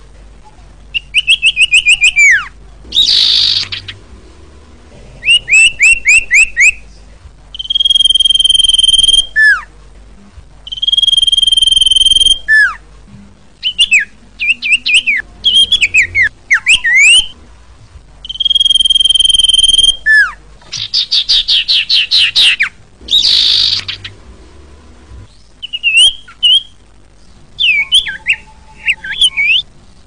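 Common iora singing: long, steady, clear whistled notes alternating with fast rattling runs of down-slurred notes, and twice a short harsh rasping call.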